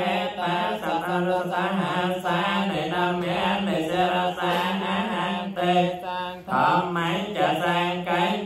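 Voices chanting Pali paritta verses in unison on a steady, near-monotone recitation pitch, in Khmer Theravada Buddhist style. There is a brief pause for breath about six and a half seconds in.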